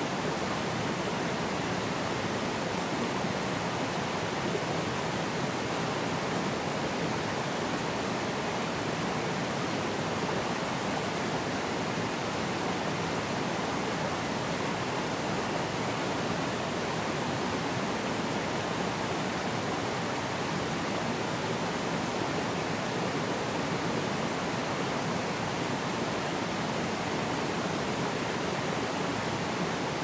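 Forest stream flowing and splashing over rocks and small cascades in a steady, even rush of water.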